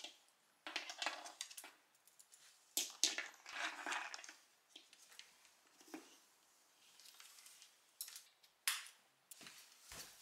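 Rustling and scraping of a nylon dog harness being worked over a small dog's head and body, in a few irregular bursts with some sharp clicks.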